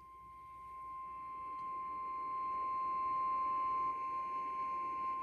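NOAA Weather Radio 1050 Hz warning alarm tone: one steady, high-pitched electronic tone over a low radio hiss, swelling in level over the first few seconds, signalling that a warning broadcast is about to follow.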